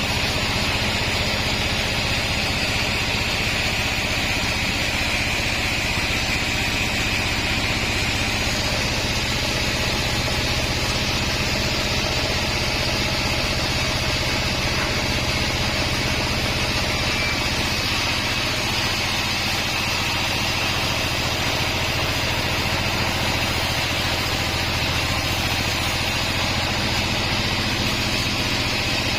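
36-inch band sawmill running steadily at work on mahogany. The low hum shifts slightly about two-thirds of the way through.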